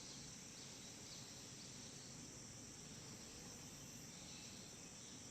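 Faint, steady, high-pitched chirring of insects such as crickets in the background, over a low even hiss.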